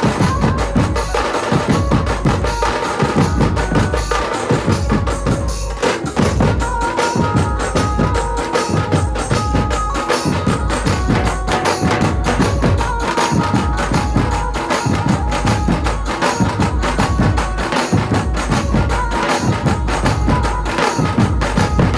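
A Dhumal band plays a qawwali tune: large double-headed drums are beaten with sticks in a fast, dense rhythm under a high melody line. The drums drop out for a moment just before six seconds in.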